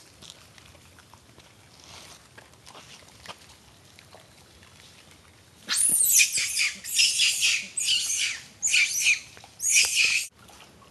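An animal giving about five loud, high-pitched squawking calls in quick succession, starting a little past halfway and cutting off suddenly near the end.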